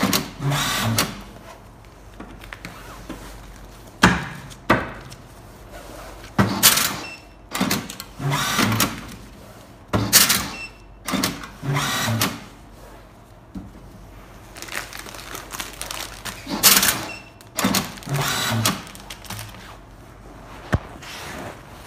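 Tabletop automatic banding machine cycling again and again as bundles are fed in: each cycle is a quick motor whir with a sharp clack as the band is drawn tight around the bundle and cut, repeating every one to three seconds.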